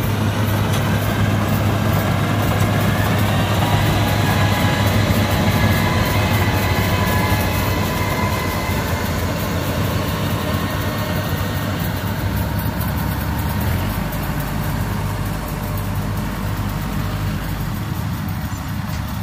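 Combine harvester's diesel engine running steadily, with faint steady whining tones from the machinery above the low hum; the low engine note shifts a little past halfway.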